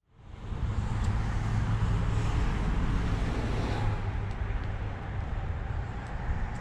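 Steady low outdoor rumble that fades in at the start, with a few faint clicks.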